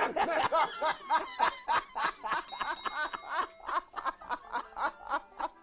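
Men laughing hard, a fast run of 'ha-ha-ha' pulses at about four or five a second.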